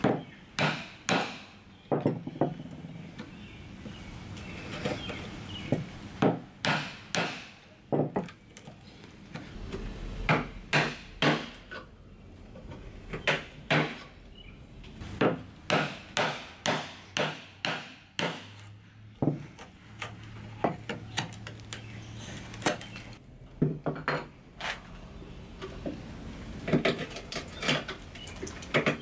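Sharp knocks of wood being struck, repeated in runs of several blows with short pauses between.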